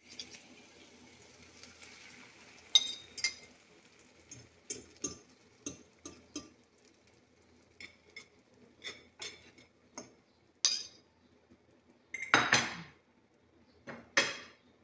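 Beaten egg going into a hot frying pan with a faint sizzle, then a cooking utensil tapping and scraping against the pan in a string of sharp clinks, with a longer scrape near the end.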